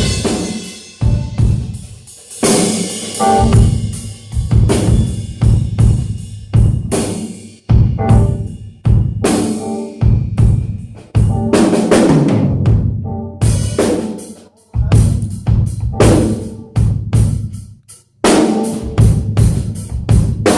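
Acoustic drum kit played in loud, busy phrases: bass drum and snare hits with rolls and fills, and cymbal crashes ringing over them, with a few short breaks between phrases.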